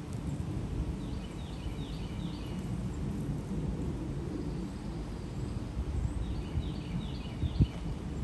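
Outdoor ambience: a steady low rumble, with a bird calling twice, each call a quick run of four or five falling chirps.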